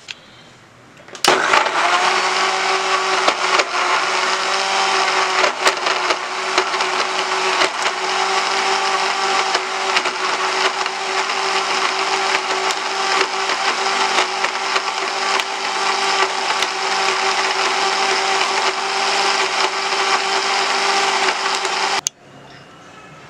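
Electric countertop blender starting up about a second in and running steadily, puréeing beetroot, dates and milk into a smoothie. Its pitch climbs briefly as it spins up, and it cuts off suddenly near the end.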